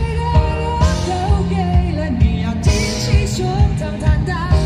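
Live pop song from an outdoor concert stage over a PA system: a voice singing a melody over a band with a steady beat, heard from out in the crowd.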